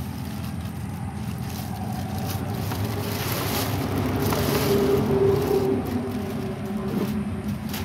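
Plastic bag crinkling and water splashing as live eels are tipped from a bag into a basin of water, loudest around the middle. A steady mechanical hum runs underneath.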